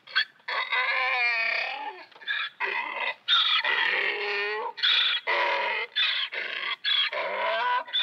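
A dog whining and yelping in a run of short, high, pitched calls, some of them falling in pitch.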